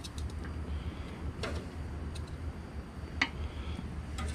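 Metal tongs clicking and tapping against the grill grate and a metal baking pan, a few separate clicks with the loudest about three seconds in, over a steady low hum.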